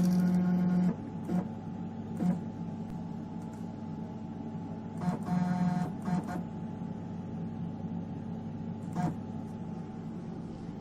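Stepper motors of an EMCO Compact 5 PC lathe jogging the tool slide: a pitched whine for about a second at the start and again about five seconds in, with a few short blips between, over a steady machine hum.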